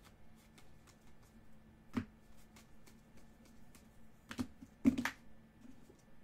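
Trading cards being handled over a table: light clicks and taps as cards are flipped through and set down on stacks. There is a sharper knock about two seconds in and a cluster of louder taps about five seconds in.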